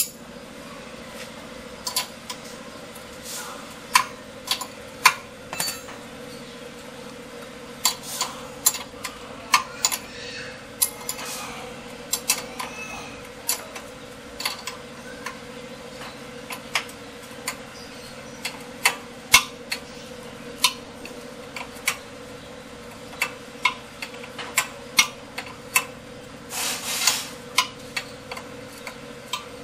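Sharp metallic clicks and clinks at an uneven pace, roughly once a second, from a wrench and loose metal parts as a car's front brake disc and hub assembly is worked on, over a steady faint hum. A scraping rattle lasts about a second near the end.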